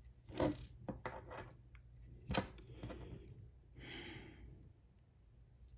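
Light handling of a small plastic drone landing-gear part and a tiny screw with a thin metal tool: a few scattered clicks and taps, the sharpest about two and a half seconds in, and a soft hissing rustle around four seconds in.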